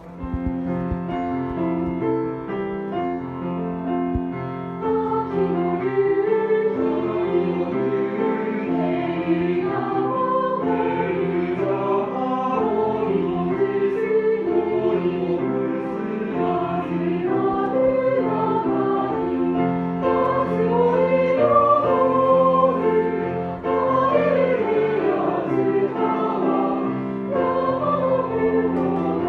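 Choral music: voices singing a slow, gliding melody over sustained chords, starting suddenly out of silence.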